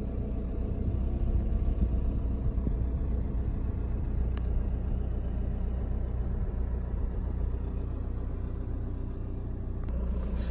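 A 4x4's engine running steadily, with a low wind rumble on the microphone.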